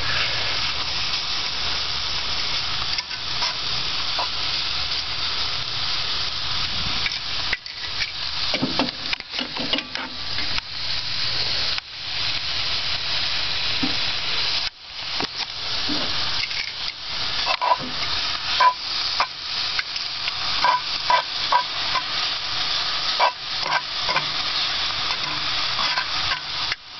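Steak sizzling as it fries in a hot pan, a steady hiss broken by frequent clicks and scrapes of a utensil moving the meat.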